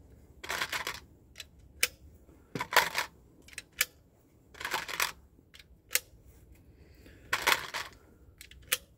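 9mm cartridges being thumbed one at a time into an MP5-pattern stick magazine: irregular sharp clicks as each round seats, with short rattles of brass between, every second or two.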